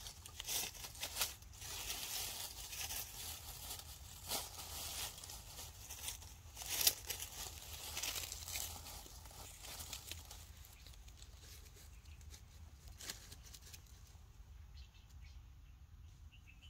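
Faint rustling and crackling with scattered short clicks, busiest in the first ten seconds and quieter after that.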